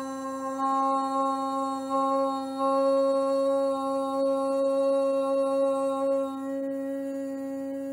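A voice chanting the seed sound Om, held on one steady low note with a rich, even set of overtones, swelling about two and a half seconds in and fading to a quieter hum over the last two seconds.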